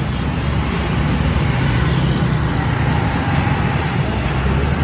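Steady traffic noise with a low engine rumble from a large vehicle such as a tour bus; no horn tune sounds.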